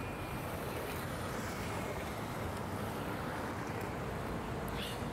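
Steady city traffic noise: a continuous low rumble of cars on a busy avenue, with a brief faint click near the end.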